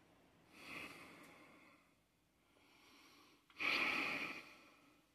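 A man breathing out heavily through the nose close to the microphone, twice: a softer breath about half a second in and a louder one about three and a half seconds in.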